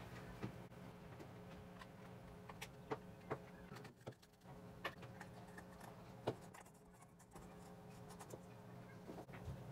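Faint, irregular light clicks and taps, a dozen or so scattered through, over a low steady hum.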